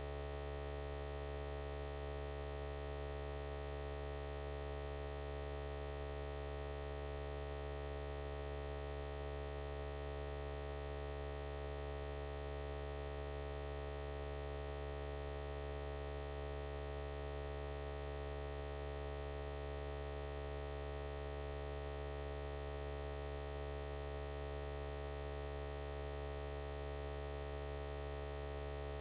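A steady, unchanging hum made of several constant tones, strongest low down, with no other sound.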